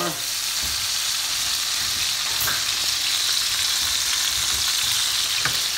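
Pork chops and a knob of melting butter sizzling in a hot frying pan: a steady, even hiss.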